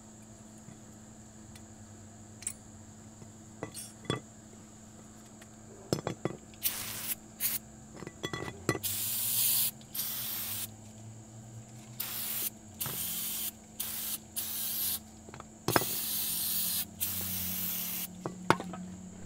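Aerosol can of brake parts cleaner sprayed onto a brake caliper in about ten short bursts of hiss, with a few metal clinks before the spraying starts.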